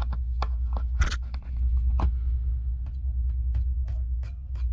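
Irregular small clicks and ticks of a precision screwdriver and tiny screws being fitted into the iPad Pro's internal metal plate, one louder clack about a second in, over a steady low hum.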